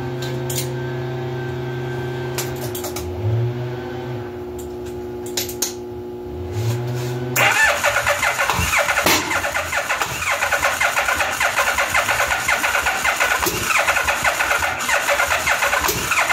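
Electric starter cranking a 1985 Yamaha V-Max's V4 engine after its carburettors have been cleaned, a fast, even pulsing that starts about seven seconds in and cuts off abruptly at the end. Before it, a steady background hum of music.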